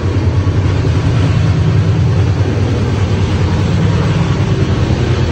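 Double-decker express train running, heard from inside the coach: a loud, steady rumble and rush of travel noise.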